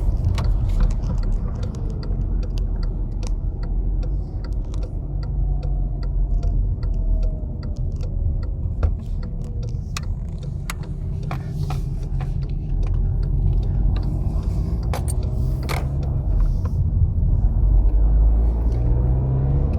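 Engine and road noise inside the cabin of a Volkswagen Passat 2.0 turbo diesel on the move, the engine pitch shifting and rising near the end as it accelerates, with scattered light clicks and rattles. Once warm, the engine runs without the valve-train clicking it makes when cold.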